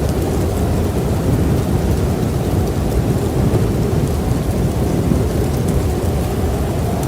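Strong snowstorm wind blowing across the microphone: a loud, steady low rumble.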